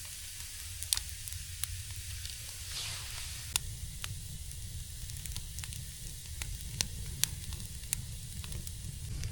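Small campfire of damp deadwood crackling, with irregular sharp pops over a steady hiss as the wet wood starts to catch.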